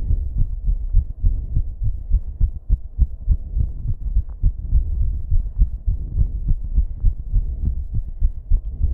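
A racing human heartbeat picked up close, heard as quick, muffled low thuds several times a second.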